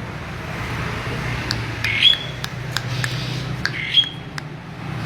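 A starling (jalak) giving two short harsh calls about two seconds apart, each sweeping up into a brief whistle. Scattered sharp clicks and a steady low hum run beneath.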